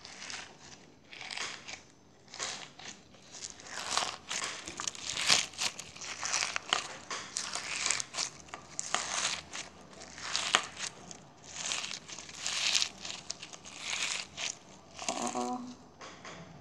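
Crunchy slime squeezed and kneaded by hand, giving repeated crackling, popping crunches at about one squeeze a second.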